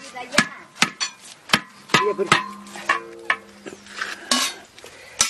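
A long-handled metal spatula knocking and scraping against a large metal cooking pot and a steel plate, about two sharp clinks a second with some ringing of the metal.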